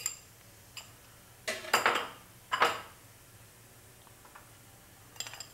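Kitchen dishes and utensils knocking and clinking: a click at the start, two short clattering knocks about one and a half and two and a half seconds in, and a few faint clicks near the end.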